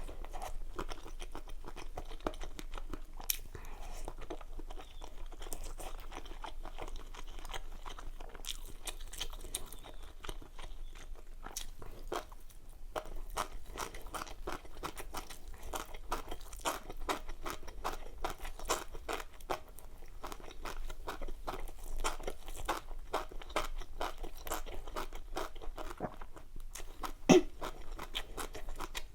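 Close-miked mukbang eating sounds: steady, irregular chewing and crunching of food. There is one sharp, louder knock near the end.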